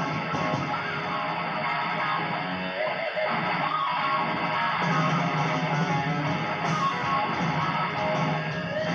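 Music led by strummed electric guitar.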